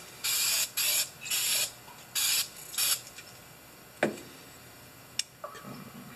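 An aerosol can of silicone spray lubricant gives five short hissing bursts in the first three seconds. About four seconds in comes a sharp metal clink, with a lighter tap a second later, as parts are set on the shop press.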